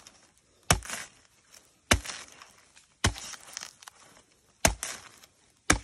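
Machete chopping into a fresh bamboo shoot, splitting its fibrous flesh: five sharp strikes a second or so apart, some followed by a brief crackle.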